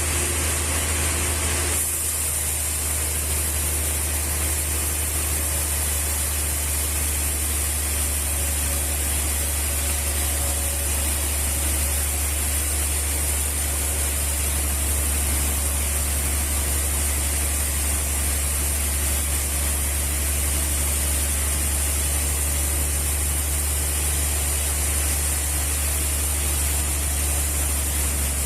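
Sawmill machinery running steadily: a constant low hum with a high hiss over it, shifting slightly about two seconds in.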